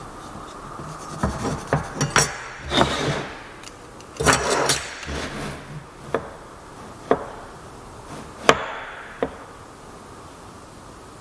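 Wooden joint parts being handled and fitted together: a series of sharp wooden knocks and taps, with a short scrape of wood rubbing on wood about four seconds in and the loudest knock a little after eight seconds.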